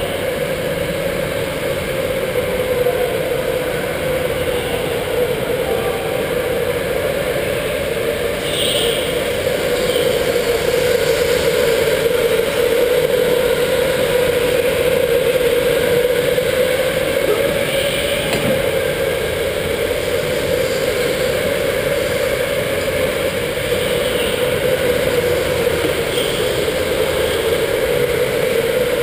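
Electric go-kart's motor whining steadily while driving around an indoor track, heard from onboard the kart, its pitch wavering slightly with speed over rolling and rattling noise.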